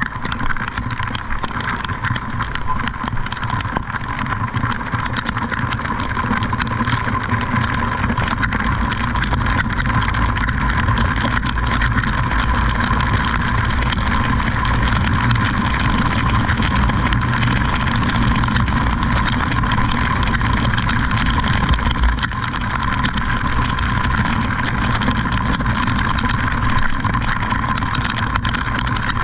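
Motor-vehicle engine running steadily, with continuous road noise.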